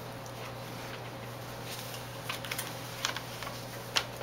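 Quiet room tone with a steady low hum, broken by a few short, faint clicks and taps in the second half.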